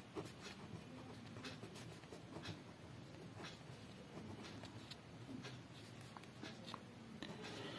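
Pen writing on paper: faint, irregular scratching strokes as a line of text is written.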